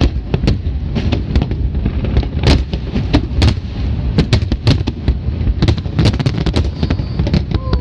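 Fireworks display: shells bursting in rapid, irregular bangs, several a second, over a continuous low rumble from the barrage.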